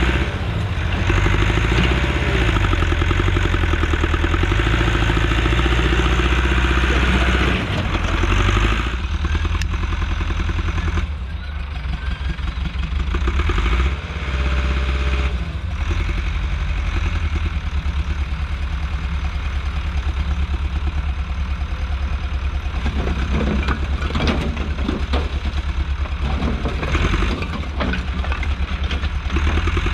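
Allis-Chalmers 655 track loader's engine running under load, busier and louder for the first nine seconds or so, then settling to a steadier lower note, with a few scattered knocks later on.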